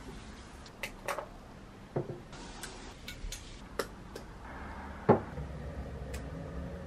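Irregular light clicks and taps, with one louder knock about five seconds in.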